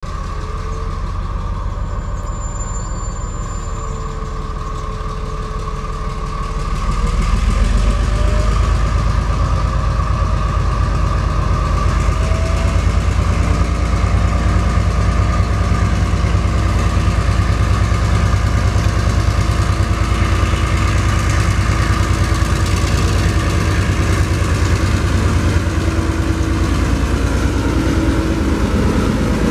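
TasRail TR-class diesel locomotive moving slowly, its engine running with a steady low throb that grows louder about seven seconds in as it draws near. Faint whining tones drift slowly in pitch over the engine sound.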